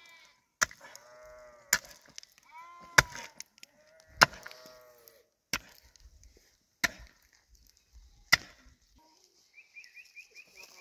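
Pickaxe striking stony ground: seven sharp blows, one every second and a bit, stopping after about eight and a half seconds. Livestock bleat between the first blows.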